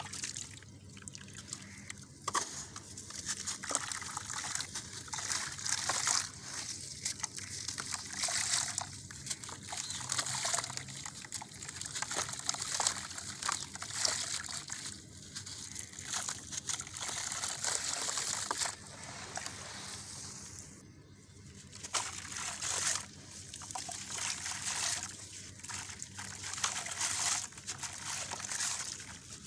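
Lumps of reused gritty cement full of small concrete stones being crumbled in water, with trickling and sloshing. It comes in bursts with short pauses between them, the longest about two thirds of the way in.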